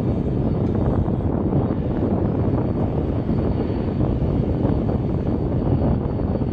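Jet airliner's engines, a loud, steady, low rumble that has just swelled up and holds at full strength.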